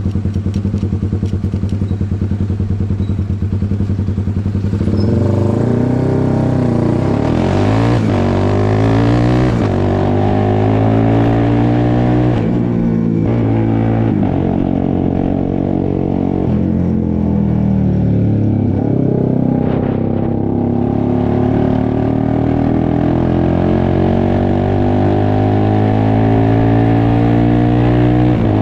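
Honda CBX 250 Twister's single-cylinder four-stroke engine, bored out to 79 mm and fitted with a tuned aftermarket exhaust, idles with an even pulse, then from about five seconds in its pitch rises and falls repeatedly as it is revved, with short drops around twelve and twenty seconds in.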